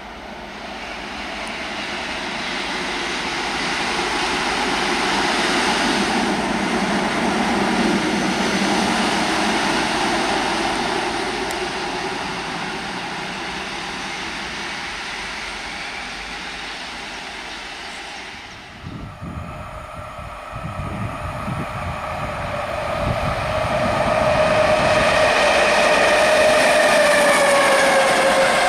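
Newag 6Dg diesel shunting locomotive running light past, its sound swelling over the first few seconds and then slowly fading. Then EU07E electric locomotive hauling an intermodal container train past, with wheel clatter and several steady whining tones that fall slightly in pitch near the end.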